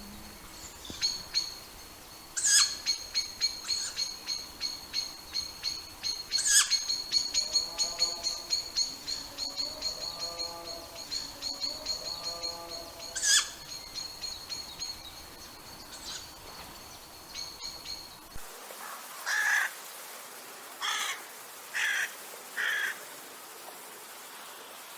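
Birds calling: a fast, high ticking trill runs for most of the stretch, broken by a few louder sharp notes, with a lower wavering call partway through. After an abrupt change in background, four short separate calls follow near the end.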